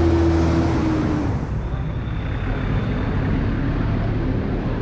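A bus engine running as the bus pulls away, its low drone fading out after about a second. Then steady street traffic noise.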